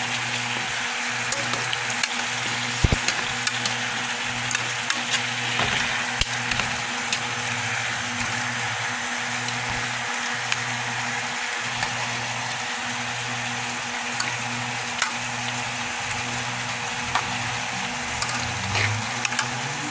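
Chicken pieces sizzling steadily in hot butter in a pot, with scattered light clicks and knocks as tongs move the pieces around.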